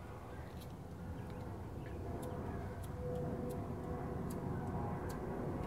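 Thumbwheel lighter being flicked over and over, faint sharp clicks roughly every half second, without catching a flame. A steady low rumble runs underneath.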